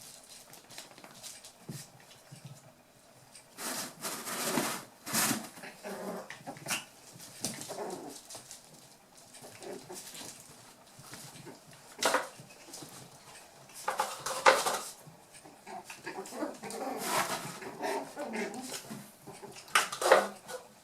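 Eight-week-old toy poodle puppies playing, giving short yips and whimpers in irregular bursts.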